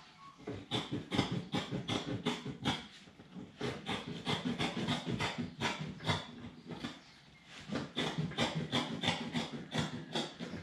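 Carpet being cut by hand with a blade, in quick repeated cutting strokes about four or five a second, with two short pauses.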